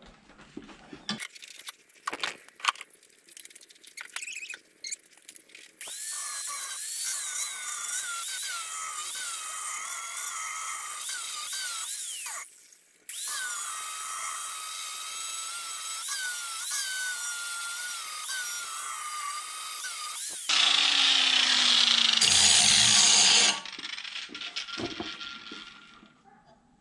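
Electric angle grinder sharpening a steel lawn mower blade held in a vise. It opens with a few knocks as the blade is handled. The grinder then runs for about fifteen seconds, its whine dipping and wavering as it bites into the edge, with a brief pause about halfway. A louder stretch comes before it stops, followed by a few knocks.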